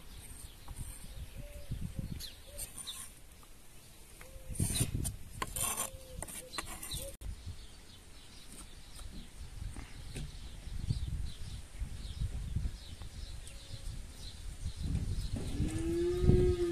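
Knife chopping herbs on a wooden cutting board, in a few runs of quick strokes about halfway through. Near the end, cattle lowing: one long call that rises and then falls, the loudest sound.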